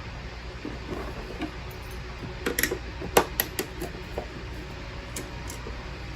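A quick run of light clicks and clinks from small hard objects being handled, bunched about halfway through, over a steady low hum.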